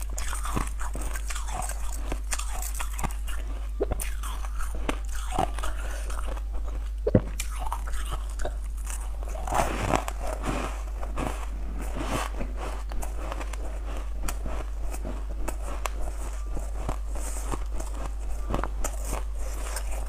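Ice cubes being bitten and chewed, a dense run of irregular crisp crunches and cracks close to a clip-on microphone, over a steady low hum.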